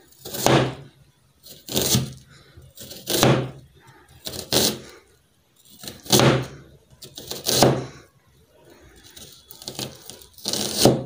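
Kitchen knife slicing a red onion on a plastic cutting board: about seven slow, evenly spaced cuts, roughly one every second and a half, with a longer pause before the last.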